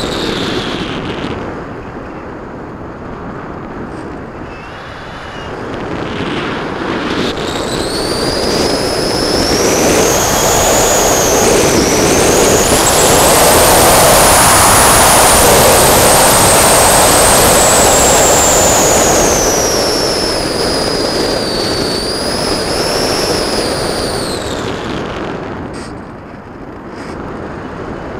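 R-Planes Pioneer FPV model plane's electric motor and propeller whining, heard from on board with air rushing over the airframe. The whine is off at first, comes back about a quarter of the way in, climbs in pitch, holds, then falls away and stops near the end; the rush of air is loudest in the middle, as the plane dives toward the ground.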